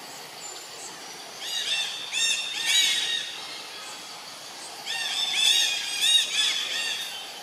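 Baby macaque squealing in two bouts of quick, high cries, each note rising and falling. The first bout comes about a second and a half in, the second a little after the middle.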